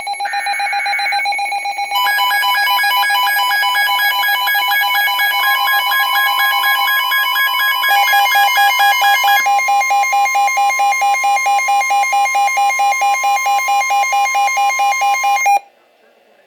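Emergency Alert System broadcast tones: a short burst of the digital data squawk, then a loud, rapidly pulsing electronic alert signal of several steady tones that runs about thirteen seconds and cuts off abruptly.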